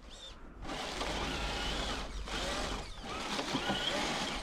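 Electric RC truck's motor and gearbox whining under power, the pitch wavering as the wheels spin and slip on snow-covered leaves.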